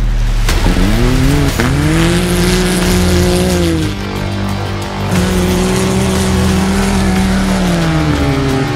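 Can-Am Maverick X3 UTV engine revving hard under racing load. The pitch climbs about half a second in and holds high, drops off around the middle as the throttle lifts, then climbs and holds again before falling near the end.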